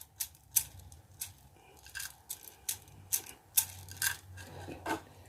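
Whole cloves being pounded for a remedy: a run of sharp, irregular taps and knocks, about two a second.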